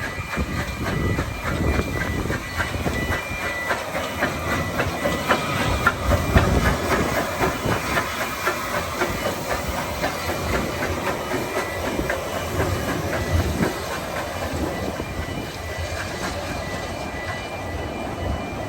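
Narrow-gauge train running past, its wheels clicking rhythmically over the rail joints.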